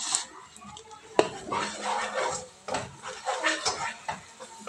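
Wooden spoon knocking and scraping against a metal cooking pot while stirring: a sharp knock about a second in, then irregular clatters.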